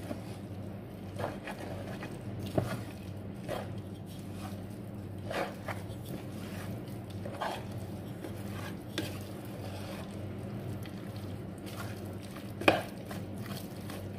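A utensil stirring a thick spinach, cream and cheese pie filling, giving irregular scrapes and clinks against the container about once a second, with one sharper knock near the end. A steady low hum runs underneath.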